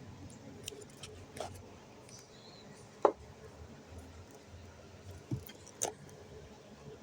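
Scattered light clicks and taps of small objects being handled, with the loudest sharp click about three seconds in and a few smaller ones around it.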